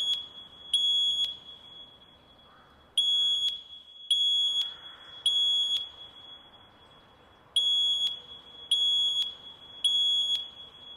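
Voice-evacuation fire alarm sounding the temporal-three evacuation tone: high-pitched beeps in groups of three, about a second apart, with a longer pause between groups.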